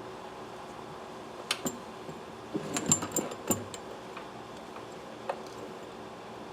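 Small sharp clicks and taps as carburetor parts are worked by hand. About a dozen come between roughly one and a half and four seconds in, and one more comes near the end, over a steady background hum.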